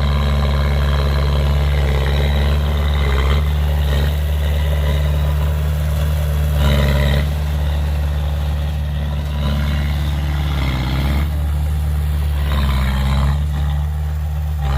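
Heavy diesel earthmoving machinery running steadily, with brief rises in engine effort about seven and thirteen seconds in.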